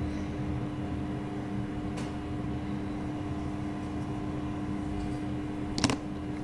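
Steady low hum with a faint tick about two seconds in and a sharp click near the end.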